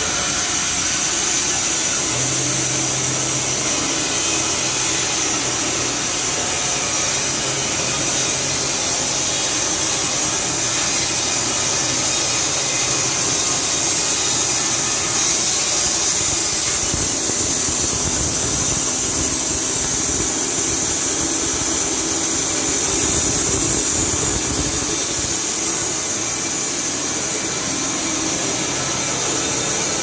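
Carpathian SM 110 band sawmill, driven by an 11 kW electric motor, running with its band blade cutting through a squared log. The noise is steady and loud, with a strong high-pitched hiss.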